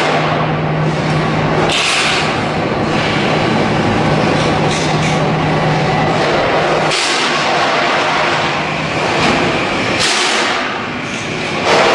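Loud industrial machinery noise. A steady low hum fades out about seven seconds in, and several short bursts of hiss rise and fall over a constant rushing background.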